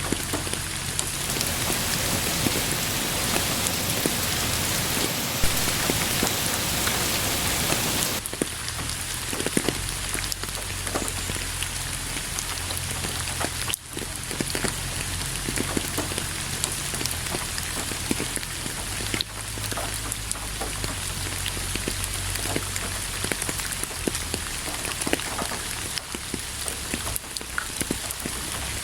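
Steady rain falling on a surface: a constant hiss with many separate drops hitting. It is heavier and brighter for about the first eight seconds, then turns lighter abruptly, with a brief dip in the middle.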